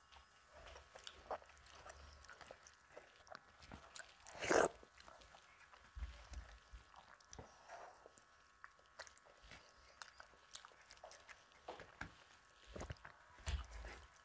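Close-miked eating sounds: fingers squishing and mixing rice with dal and jackfruit curry on a plastic plate, and wet chewing, made up of many small clicks and smacks. The loudest smack comes about four and a half seconds in, with another near the end.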